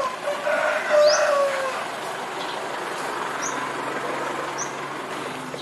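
Roadside outdoor ambience: a bird chirping in short high notes at intervals, with a louder sliding sound about a second in and a low steady vehicle-like hum from about halfway.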